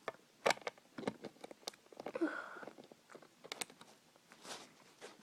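Small plastic Lego pieces clicking and clattering as they are handled and picked through, with a scatter of sharp clicks, the loudest about half a second and a second in.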